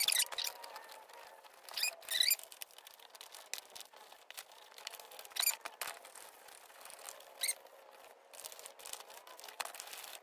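A wipe rubbed over a smooth box-leather handbag, giving a handful of short, high squeaks with soft rubbing and rustling in between.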